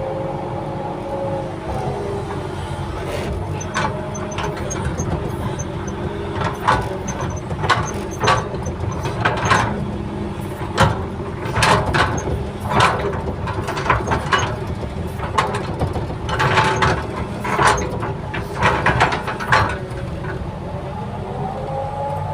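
Excavator working soil: the engine runs steadily with a pitched tone that glides up and down near the start and again near the end, while through the middle comes an irregular string of sharp knocks and scrapes from the machine working.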